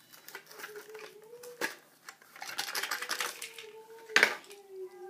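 Plastic and cardboard packaging of a Hot Wheels car being worked open by hand: irregular crackling and clicking, busiest about halfway through, with one sharp snap near the end. A faint wavering whine runs underneath.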